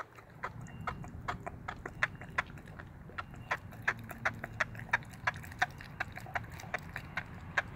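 Bulldogge puppy chewing a raw chicken leg quarter, its teeth crunching and clicking on the bone in a steady rhythm of about three bites a second, over a low, even rumble.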